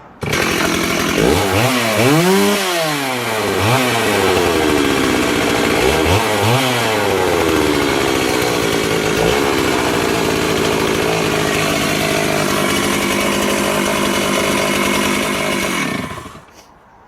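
Stihl 038 AV Super 61cc two-stroke chainsaw restarted warm, catching at once. It is revved up and down three times, settles to a steady idle, and cuts out near the end.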